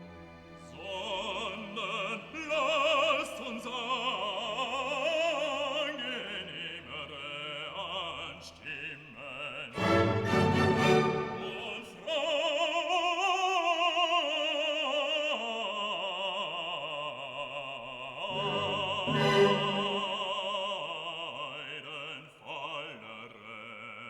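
Background music: operatic singing with orchestral accompaniment, a voice holding long notes with heavy vibrato.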